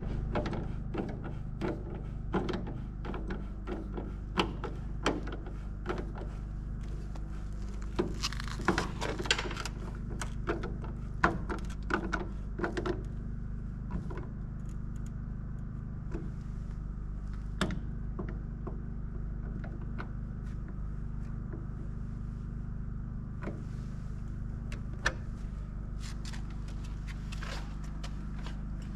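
Scattered small clicks and taps of hand work fitting a 20 amp GFCI electrical outlet, over a steady low hum. The clicks are dense in the first half and thin out after the middle.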